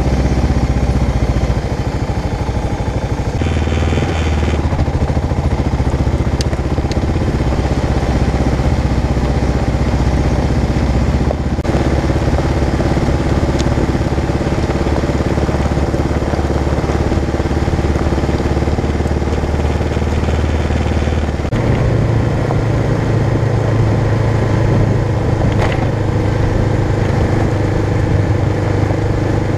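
Kawasaki KLR650's single-cylinder four-stroke engine running as the motorcycle rides along a dirt track, its engine note stepping to a new pitch several times.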